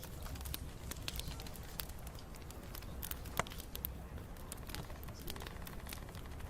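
Wood fire crackling, with irregular sharp pops over a low steady rumble; the loudest pop comes about three and a half seconds in.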